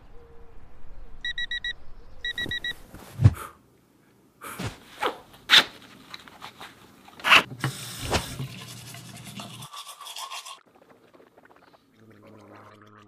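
Morning-routine sounds: an alarm beeping in two short bursts, then sharp swishes, thumps and rubbing as boot laces are pulled tight, and gargling near the end.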